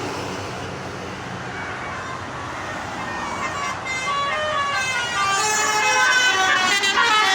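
A bus's Basuri telolet horn playing a quick tune of stepped notes over road noise, growing louder as the bus approaches, with the notes sliding down in pitch near the end.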